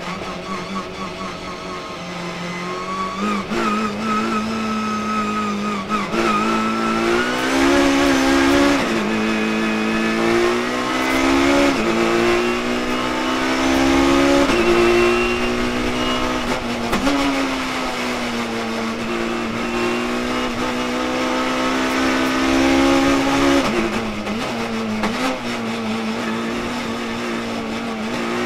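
BMW touring race car engine heard from inside the cockpit, accelerating hard through the gears: the pitch climbs and drops back at each gear change several times, then stays at high revs with a few brief lifts.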